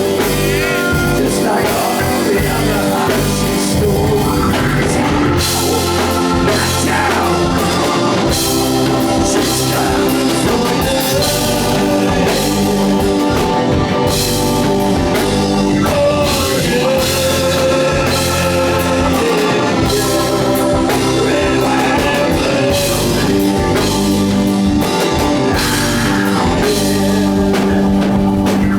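Blues-rock band playing live: drum kit, bass and electric guitar, with a voice singing over them.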